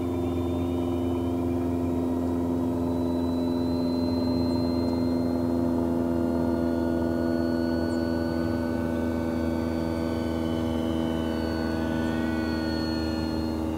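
Electric brushless motor and propeller of an E-flite P-51D Mustang 1.2 m foam RC warbird in flight on a 3-cell battery: a steady drone with a faint high whine that drifts slightly in pitch as the plane moves.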